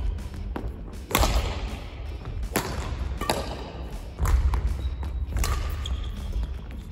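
Badminton rally: a racket strikes the shuttlecock with a sharp crack about every second or so, and footsteps thud on the court between the shots.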